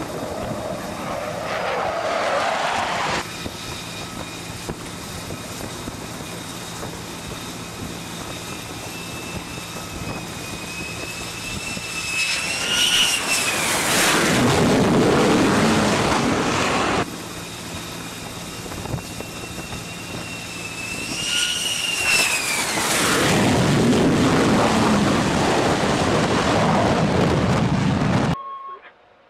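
F-35C jet engines at high power, with two loud passes about nine seconds apart. Each pass carries a whine that rises, peaks and falls away as the jet goes by, over a steady jet-engine rush. The sound cuts off suddenly near the end.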